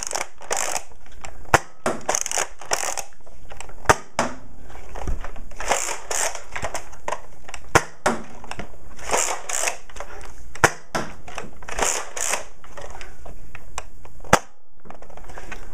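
A Nerf Zombie Strike Slingfire spring blaster is fired about six times, each shot a sharp snap a couple of seconds apart. Between shots comes the rattle of the blaster being re-primed with its sling-style priming handle.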